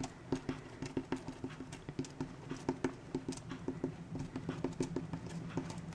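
An old toothbrush dabbed over and over onto soft polymer clay to texture it: a quick, irregular run of light taps, several a second.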